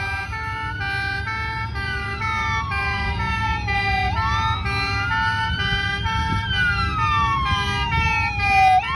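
Several emergency-vehicle sirens sounding together on fire-service display vehicles: a slow wail that sinks and climbs over a few seconds, with two-tone sirens alternating high and low about twice a second. A steady low vehicle rumble runs underneath.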